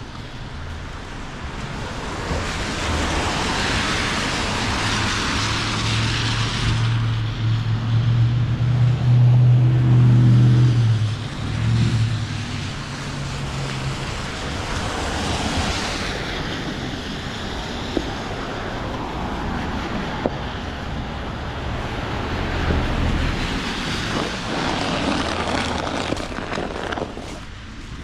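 Road traffic on a wet, slushy street: car tyres hissing past in swells, and a low engine drone that builds and fades through the middle, loudest about ten seconds in.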